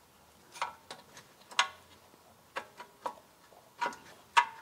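Irregular sharp metallic clicks and knocks, about eight of them with the loudest near the end, as a BMW Z3 rear suspension arm is shifted by hand to line up its bolt hole.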